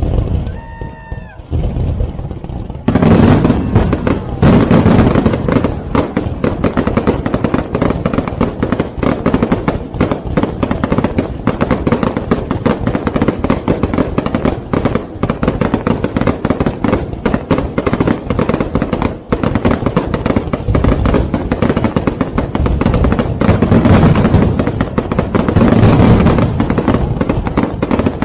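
Aerial fireworks going off in a dense, rapid barrage of bangs and crackles with no gaps. It starts about three seconds in, after a moment of quieter pitched whistling.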